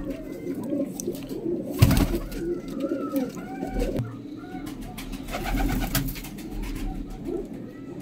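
Domestic pigeons cooing continuously, with a sharp knock about two seconds in and a brief rustle a little past the middle.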